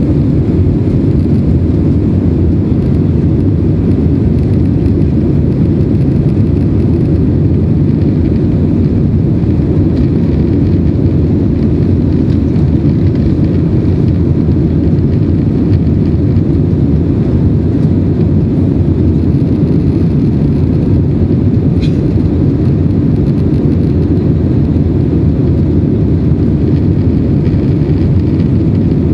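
Steady, loud roar of an Airbus A320's jet engines and airflow, heard from inside the passenger cabin during the climb after takeoff.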